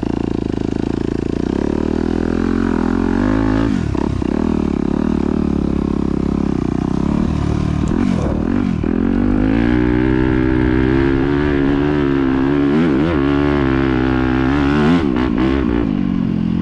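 Yamaha YZ250F motocross bike's four-stroke single-cylinder engine running under riding throttle, its revs rising and falling, with sharp drops in revs about four and eight seconds in.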